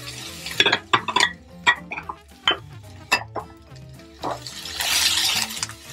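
Silicone spatula stirring sliced onions in a non-stick frying pan of hot oil: scattered clicks and scrapes against the pan, with a louder scraping, sizzling rush about five seconds in. Background music with low, steady notes plays underneath.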